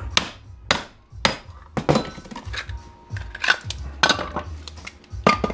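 Hammer blows on an AC adapter's casing to break it open, about a dozen sharp clinking strikes at an uneven pace.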